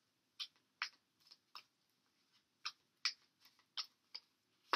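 Tarot cards being handled and drawn from the deck: about ten light, sharp clicks at uneven intervals, with a short pause near the middle.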